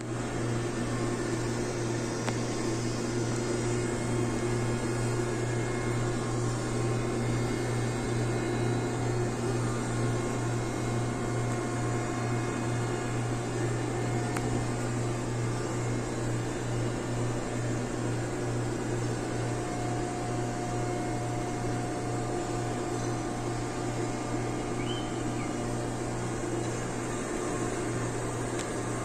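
Steady low drone of heavy machinery engines running without change, a deep hum under a wash of mechanical noise.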